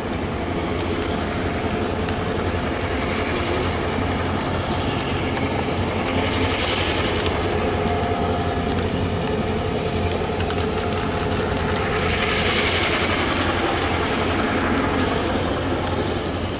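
Diesel freight locomotives running steadily as they pull a freight train past, with the rumble and clicking of wheels on the rails. The high hiss of the passing train swells twice, about six and twelve seconds in.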